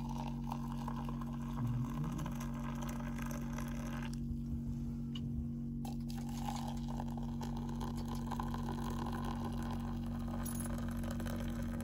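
Hot water poured from a stovetop kettle into ceramic mugs, a steady splashing trickle that stops for a moment about four seconds in as the spout moves to the second mug, then runs on. A steady low hum sits underneath.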